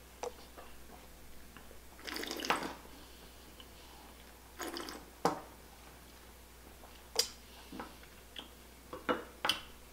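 A mouthful of red wine being tasted: two short slurps of air drawn through the wine, then several wet lip smacks and tongue clicks as it is worked around the mouth.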